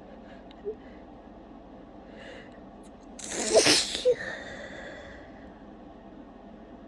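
A woman sneezing once, loudly, about three and a half seconds in, after a faint breathy intake. It is one sneeze in a fit brought on by a tickle.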